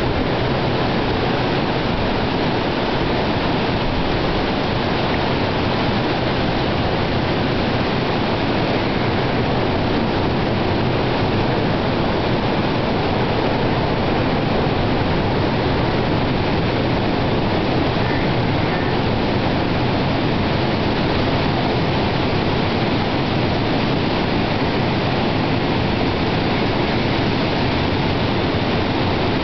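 Steady, unbroken rush of heavy sea surf breaking on black rocks and a sand beach.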